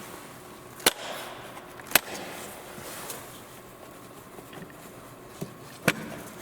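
Three sharp clicks as the clips on a Toyota Prius air filter box are unsnapped to free the cover. The first two come about a second apart, and the third follows about four seconds later.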